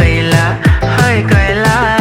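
Upbeat Telugu song with a heavy electronic beat: booming bass-drum hits that drop in pitch, under a wavering melody line.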